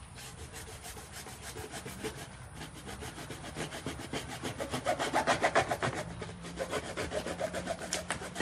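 Hacksaw cutting through a plastic drain pipe wrapped in a filter sock, in quick back-and-forth strokes that grow loudest about halfway through.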